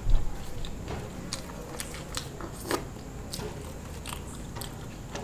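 A person chewing a mouthful of burger: a run of short, irregular crackly mouth clicks. A low thump right at the start is the loudest sound.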